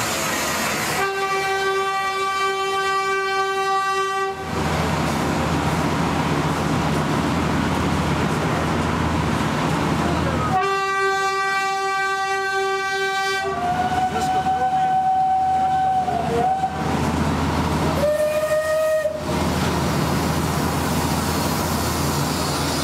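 Train horn and whistle signals over the steady rumble of a moving train. There are two long horn blasts of about three seconds each, some six seconds apart, then two shorter, higher whistle notes that slide slightly in pitch.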